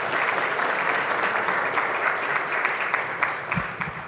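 Audience applauding: many hands clapping in a dense, steady patter that thins and fades out near the end.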